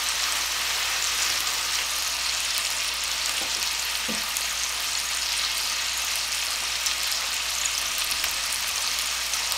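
Thin boneless chicken breasts frying in olive oil in a nonstick skillet: a steady sizzle.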